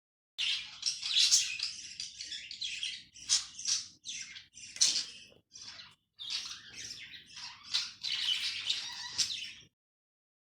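Budgerigar chattering and warbling in rapid chirps and squawks, starting about half a second in and stopping just before the end, with a few short breaks.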